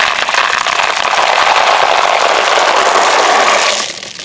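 Many glass marbles pouring out of a toy truck, a dense clatter of clicks that stops abruptly near the end.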